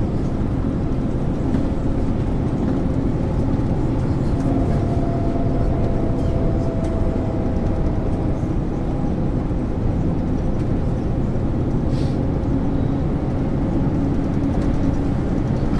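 A 1999 MAN ÜL 353 bus under way, its diesel engine running steadily with road noise. A faint whine comes in for a few seconds partway through, and there is a short click about twelve seconds in.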